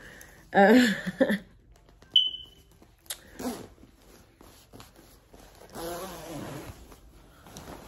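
Indistinct vocal sounds, loudest near the start, with a single short high beep a little after two seconds in.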